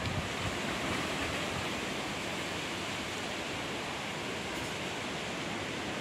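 Strong wind rushing through banana and papaya trees: a steady, even hiss of tossing leaves. Near the start it buffets the microphone with a brief low rumble.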